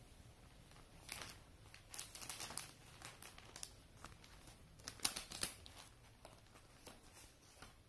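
Clear plastic packaging bag crinkling as hands move it around, in short crackly spells about a second in, around two seconds, and loudest around five seconds.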